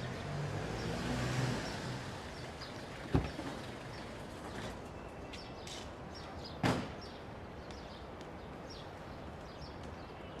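Outdoor background ambience: a steady low rumble with faint short chirps, broken by two sharp thumps about three and a half seconds apart.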